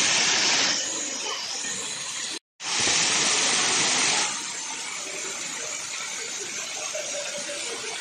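Waterfall pouring onto rocks and into a pool, a steady loud rush and splash of falling water. It breaks off for a moment about two and a half seconds in, returns loud, and drops to a softer rush about four seconds in.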